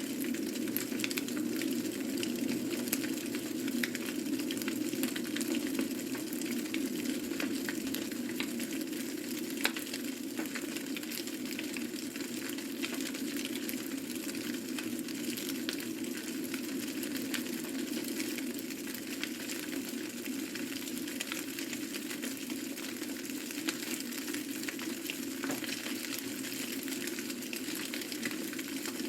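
A fire crackling and hissing steadily, with many small irregular pops.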